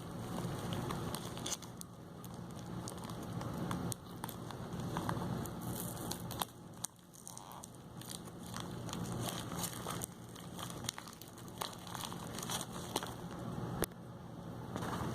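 Plastic packaging of a pair of in-ear earphones being handled and opened: crinkling with many scattered small clicks.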